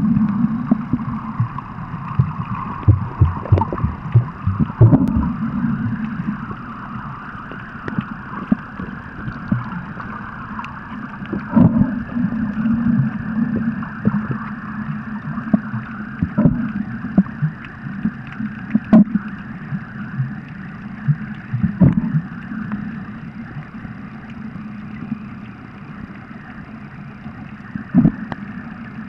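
Muffled underwater sound picked up by a submerged camera: a steady watery rush broken by irregular soft knocks and thumps from water movement and handling of the camera.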